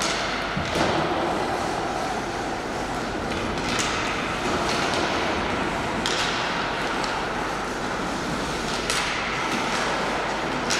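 Ice hockey play: skates scraping the ice and a few sharp knocks of sticks and puck, over a steady noisy background.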